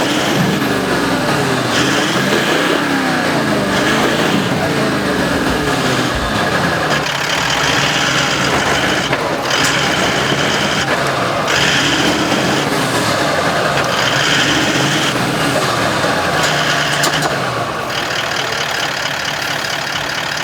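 A four-wheel-drive's engine revving up and down repeatedly as it works through a slippery off-road section, with patches of hiss coming and going over it.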